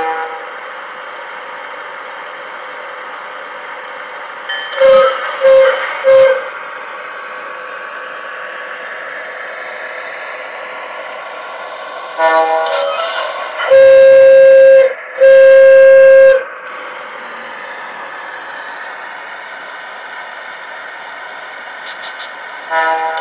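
HO-scale model electric locomotive's DCC sound decoder playing through its onboard speaker: a steady electric-motor drone, with three short horn toots about five seconds in and two long horn blasts past the middle. The long blasts are so loud that they overload and distort the recording.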